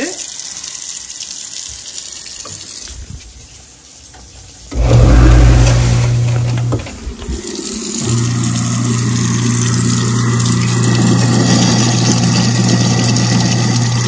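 Kitchen tap running into a sink, then an InSinkErator garbage disposal switched on about five seconds in, its motor running with a steady low hum under the water, dipping briefly and settling into a steady run. The disposal is grinding food waste washed down the drain.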